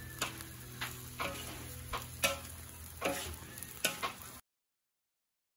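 Open wood cooking fire crackling, with irregular sharp pops several times a second over a steady low hum, until the sound cuts out near the end.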